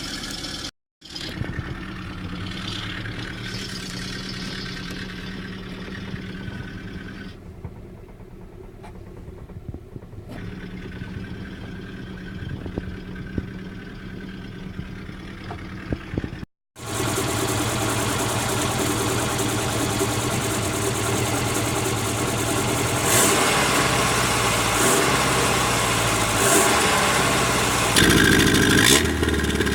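Opel car engine running through a homemade exhaust with a lever-operated cutout valve, idling steadily and fairly quietly at first. After a short break of silence it runs much louder, with several quick throttle blips and a rev rising near the end.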